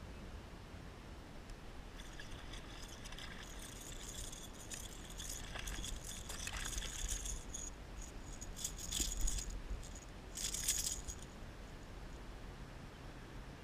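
Fishing tackle rattling and jingling as a hooked bass is fought to the kayak and thrashes at the surface, shaking the lure. The rattling starts a couple of seconds in and comes in two louder bursts in the second half.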